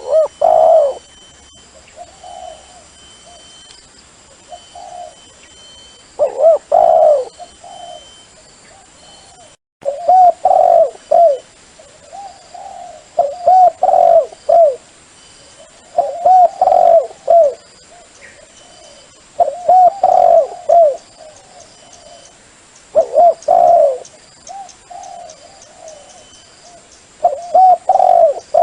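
Dove cooing in loud phrases of several bubbling coos, one phrase every three to four seconds, with fainter single coos between. The sound cuts out for a moment about ten seconds in.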